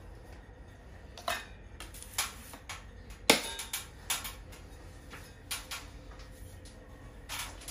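Scattered light clicks and knocks from handling tools and gear, with one sharp knock about three seconds in.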